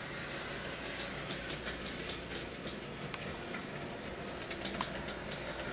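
HO scale model locomotive running along Bachmann E-Z Track, a steady whirring hum with many light, irregular clicks of its wheels over the track as it passes through the crossing.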